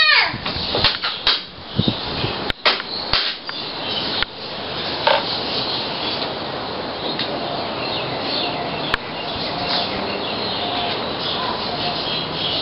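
Steady background noise with a few short knocks and clicks in the first four seconds and faint, short high chirps scattered through the rest.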